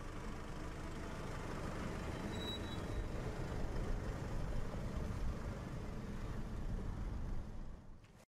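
Nissan 4x4 driving along a rough dirt track: a steady rumble of engine and tyres on loose ground that dies away near the end.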